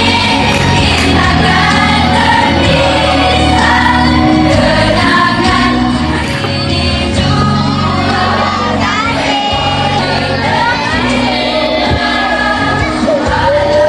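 A song: several singing voices over backing music with held bass notes.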